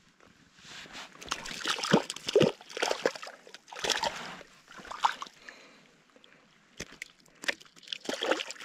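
Shallow water splashing and sloshing as a hand handles a small trout at the water's edge: irregular splashes for about five seconds, a short lull, then a few more splashes near the end.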